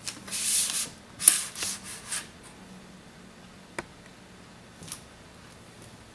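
Short bursts of scraping and rubbing as small repair tools and fingers work on an opened iPad 2, followed by two light clicks about a second apart.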